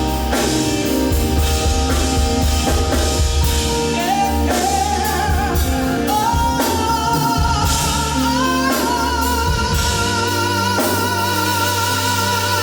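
Live band with drum kit and guitar backing a singer's wordless vocal, which climbs in steps and then holds a long high note with vibrato over the last few seconds.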